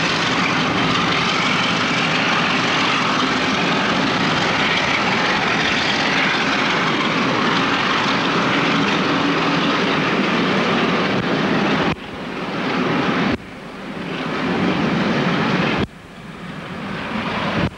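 Diesel locomotive working hard as it pulls a train of coaches out of a station, a heavy, steady engine noise over the rumble of the coaches rolling past. In the last six seconds the sound drops abruptly three times and builds back up each time.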